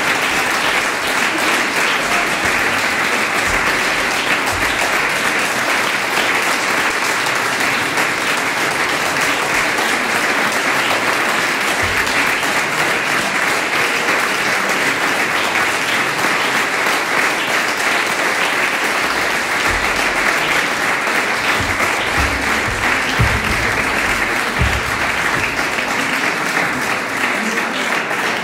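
Audience applauding steadily, with a few low thumps now and then.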